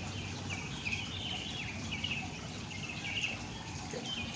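Small birds chirping in the background, a run of short high chirps repeating about two to three times a second, over a low steady hum.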